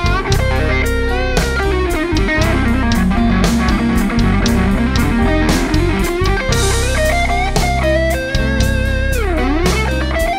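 Electric guitar playing an instrumental break with bent and sliding notes, over a backing with a steady beat and bass.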